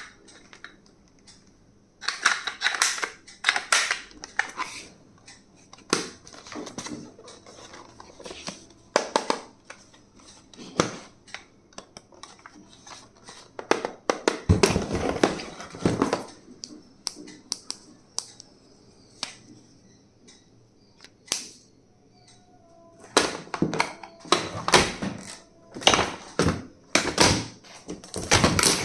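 Close-up handling of stationery items and their packaging: irregular sharp clicks and taps of small plastic objects being picked up and set down, with a longer rustle about halfway through and a quick run of clicks near the end.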